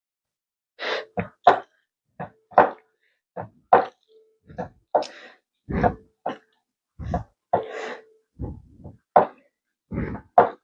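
An orange being squeezed for juice: a run of short wet squelching sounds, nearly two a second.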